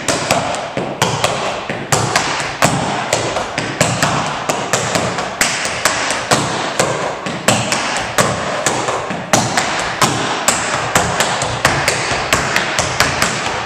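Tap shoes striking a wooden studio floor in a quick, steady tap rhythm, about three to four sharp taps a second, echoing in the room.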